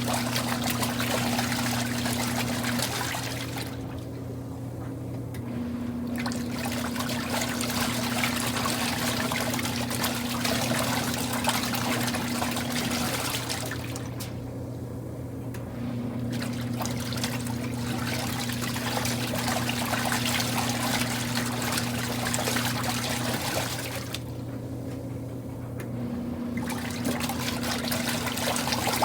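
Kuppet portable washing machine washing a load: water churning and sloshing in the tub. The churning stops for about two seconds roughly every ten seconds as the wash pulsator pauses to reverse, over a steady hum.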